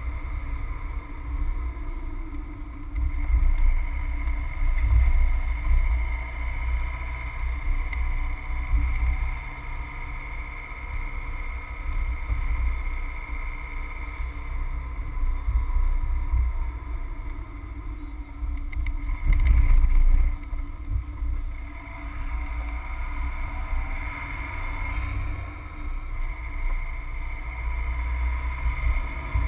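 Subaru Forester driving through town, heard from inside the cabin: steady engine and tyre rumble with a constant hum. The rumble swells louder for a second or two about twenty seconds in.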